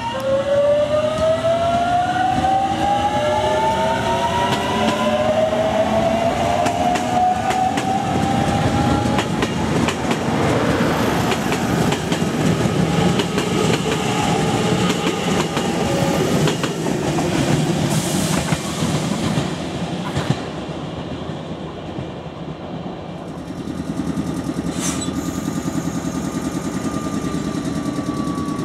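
JR Kyushu 813 series electric multiple unit accelerating past, its inverter motor whine rising steadily in pitch for the first several seconds, then the wheels clicking over the rail joints as the long train of cars runs by. Near the end a second train, a 415 series EMU, draws in with a steady rumble and a faint, slowly falling tone.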